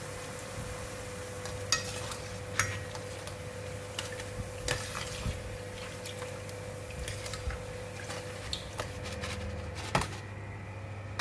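Metal kitchen utensils clinking and knocking against a stainless steel wok and strainer as fried chips are lifted out, scattered light clicks with a few sharper knocks, over a steady low hum.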